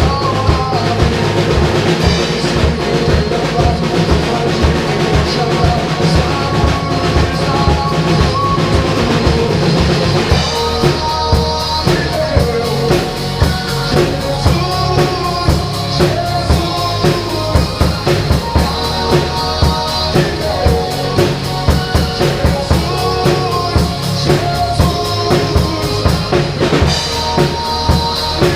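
A drum kit played by an amateur along to a recorded worship song, in a passage with no singing. The drumming turns to sharper, evenly spaced hits about ten seconds in.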